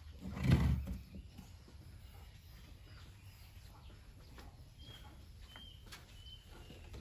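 A single dull thump about half a second in, then faint outdoor background with a bird chirping three times near the end.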